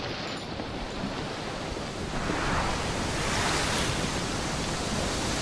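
Steady rushing of wind and water noise, swelling louder between about two and four seconds in.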